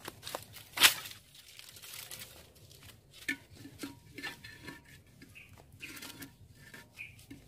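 Dry sticks and dry leaves being broken and handled by hand. A sharp crack comes about a second in, followed by a run of smaller snaps and crackling rustles.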